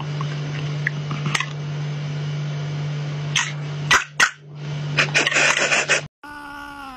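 A battery-powered green plastic toy runs with a steady motor hum, broken by a few knocks and a rattling stretch as the cat paws at it. Near the end a cat gives a loud drawn-out meow that rises and falls.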